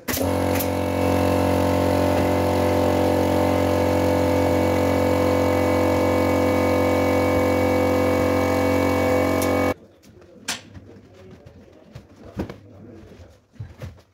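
Air compressor running with a steady, loud hum, starting abruptly and cutting off about ten seconds in, followed by a few faint knocks.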